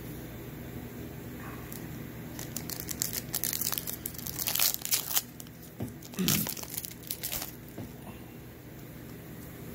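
Plastic trading-card pack wrapper being torn open and crinkled by hand, in irregular crackling rips starting a few seconds in and stopping a couple of seconds before the end.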